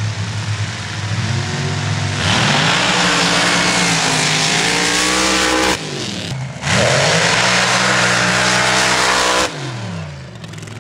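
Off-road vehicle engine revving hard at full throttle, its pitch climbing and falling under loud rushing noise. The sound breaks off abruptly twice, and near the end an engine note winds down.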